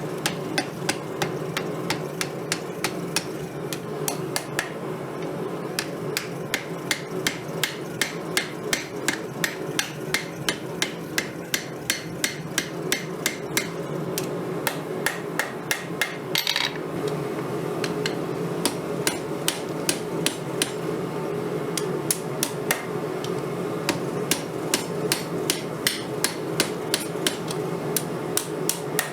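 Hand hammer striking hot steel on an anvil, forging an old file into a knife blade: steady blows at about two to three a second, with a short pause a little past halfway. A steady low hum runs underneath.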